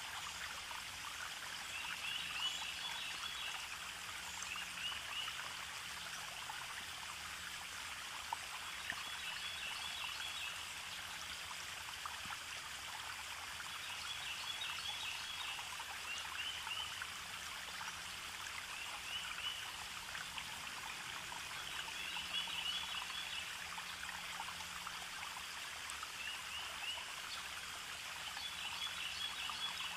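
Steady rushing sound of running water, like a stream, with short clusters of high chirps recurring every few seconds.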